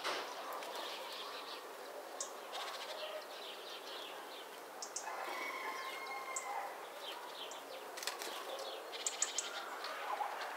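Small songbirds chirping, with many short high calls. Near the end comes a brief flutter of wings as a great tit arrives at the feeder.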